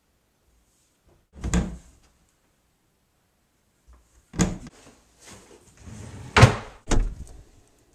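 Doors and a kitchen drawer being worked: a knock about a second and a half in, then more knocks, a drawer sliding out of a cabinet, and two sharp knocks near the end, the first of them the loudest.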